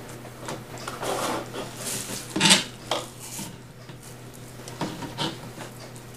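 Craft materials handled on a work table: irregular light clinks, knocks and rubbing, the loudest knock about two and a half seconds in.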